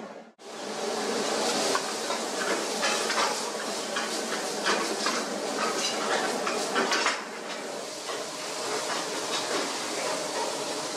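Busy commercial kitchen: food sizzling in pans on the burners, with frequent clinks and scrapes of ladles and spatulas against steel pans, after a momentary drop-out just after the start.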